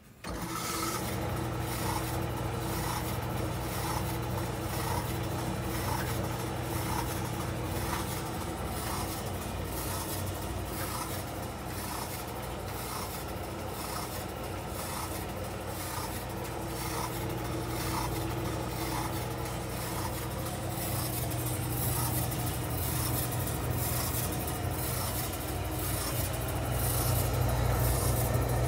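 COSTWAY 1700W portable tumble dryer running, its motor humming steadily as the stainless steel drum turns with a regular rubbing tick of a little under two a second. It grows somewhat louder in the last few seconds.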